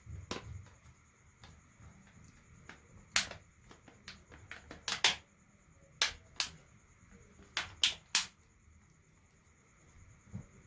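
A series of about eight sharp, short clicks, irregularly spaced, most of them between about three and eight seconds in.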